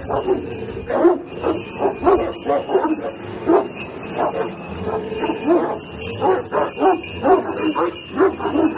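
Large dogs barking over and over at each other, two or three barks a second with a brief lull around the middle, as they lunge on their leashes at another dog.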